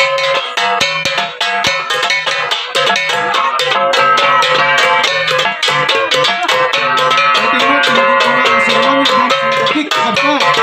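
Kankanaey gangsa ensemble of flat bronze gongs playing, with many fast interlocking strikes that ring on at several steady pitches over a low, regular beat.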